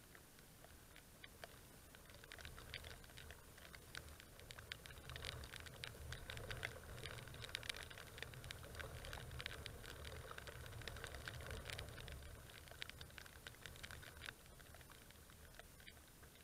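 Raindrops tapping on the camera's housing: a faint patter of scattered light ticks, thickest in the middle, over a faint low rumble.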